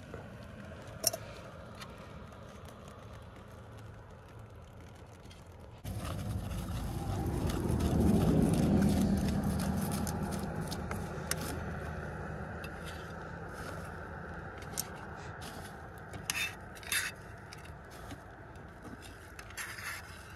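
Metal spoon stirring honey into puffed grain in a metal pot, with short scrapes and clicks of spoon on metal, most of them near the end. A low rumble comes in suddenly about six seconds in, swells, and fades away over several seconds; it is the loudest sound.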